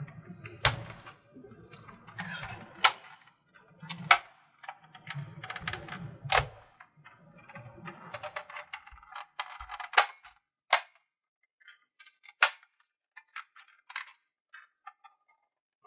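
Plastic cover and clip tabs of a 2003 Chevrolet Trailblazer instrument cluster being pressed back into place by hand, giving a series of sharp plastic clicks and snaps at uneven intervals. Rubbing and handling noise from the plastic runs through the first half, and it is quieter after that apart from scattered clicks.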